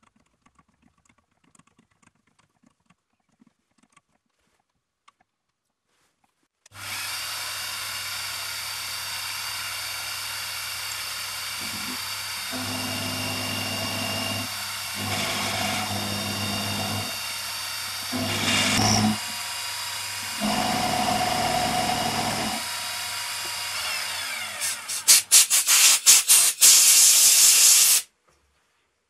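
After a few seconds of near silence with faint clicks, a benchtop milling machine's spindle starts with a steady hum and whine. An end mill then cuts a groove in a metal block, and the sound grows louder in several passes of a few seconds as the table is fed and the cutter takes load. For the last few seconds there is harsh, rapid rasping chatter from the cut, and then everything stops abruptly.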